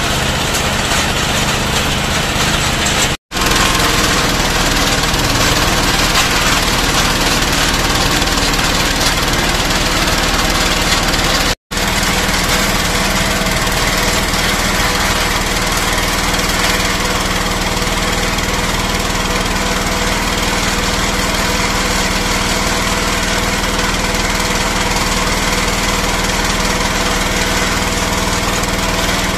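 Small stationary engine running steadily, driving a belt-driven water-well drilling rig. The sound cuts out twice for an instant, about three seconds in and again at about twelve seconds.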